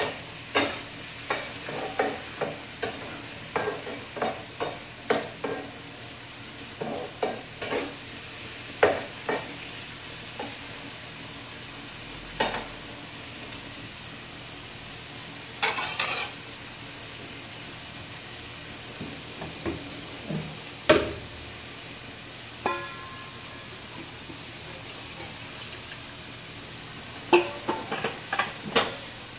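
Food sizzling as it fries in a pan, with a cooking utensil knocking and scraping against the pan as it is stirred. The knocks come often in the first ten seconds, then only now and then.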